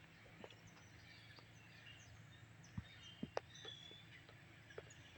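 Near silence: faint outdoor background with a few short, high bird chirps and several soft clicks, the sharpest about three seconds in.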